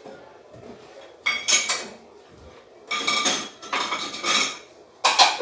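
Dishes and cutlery clattering as they are handled, in four separate bursts of knocking and clinking.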